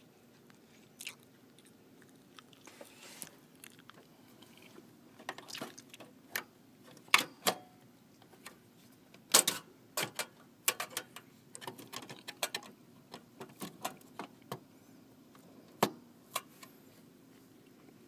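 Irregular clicks, taps and knocks of a graphics card being handled and lined up against the expansion slot and metal chassis of an HP Z400 desktop, a few of them sharper than the rest.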